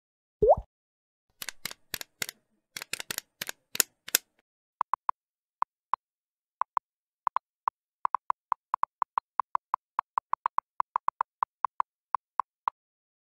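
Electronic slideshow sound effects. A short rising swoop with a thud comes first, then a quick run of about ten sharp clicks. After that comes a long, uneven string of short, high beeps, several a second, as the typing effect for on-screen text being written out letter by letter.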